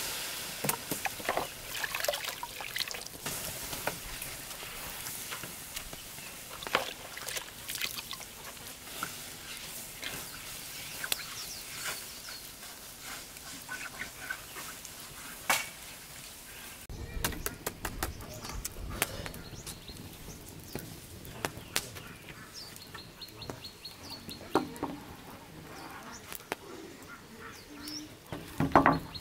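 Small wood fire crackling and popping in quick, irregular snaps, with birds calling now and then in the background.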